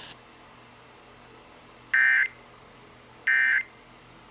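Emergency Alert System digital data bursts (SAME tones): two short, loud, buzzing bursts about a second apart, marking the break between one broadcast weather alert and the next.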